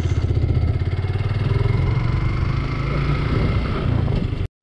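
Motorcycle engine running at low speed with a rapid, even firing beat. The sound breaks off completely for an instant near the end.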